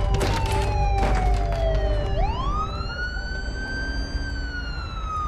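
Siren wailing: its pitch slides down, sweeps back up about two seconds in, holds, then falls again. A few sharp hits in the first second.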